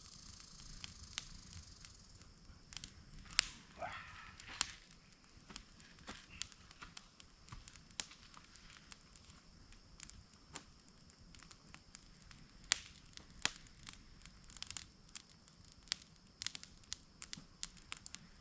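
Irregular snapping and crackling of twigs and forest brush, with sharp cracks scattered throughout as logs and branches are moved and stepped on.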